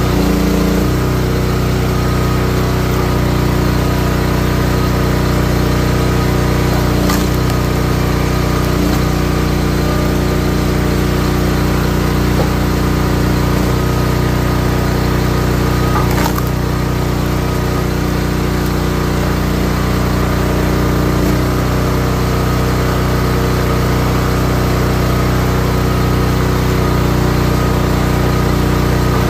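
Gas engine of a Wolfe Ridge 28-ton high-output log splitter running steadily, with a couple of brief sharp knocks along the way.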